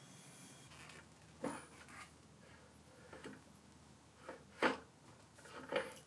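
About half a dozen short knocks and clunks from the Ex-Cell-O 602 mill's gearbox housing being handled and lifted off the milling head, the loudest about three-quarters of the way through.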